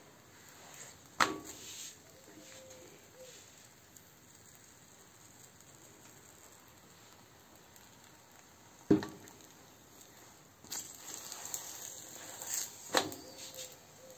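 Roti cooking on an iron pan over a gas burner: a faint hiss and crackle, broken by three sharp clicks about a second in, around nine seconds and near the end, with a rougher stretch of crackling before the last click.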